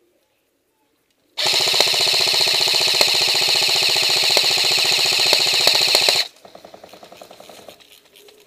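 Airsoft electric gun firing one long full-auto burst close by, a rapid stream of shots over the whine of its gearbox, starting and cutting off suddenly after about five seconds. A shorter, quieter full-auto burst follows.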